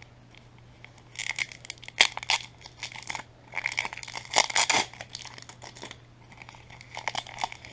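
Paper packing being unwrapped and crinkled, in irregular rustling bursts with sharp crackles, the loudest about two seconds in and again around four and a half seconds.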